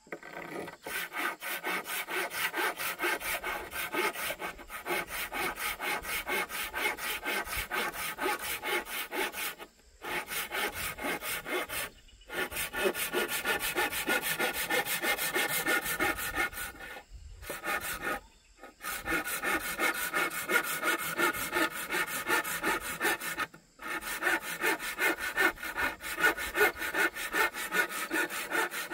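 Hand saw cutting across a thin wooden board in quick, even back-and-forth strokes, with a few brief pauses.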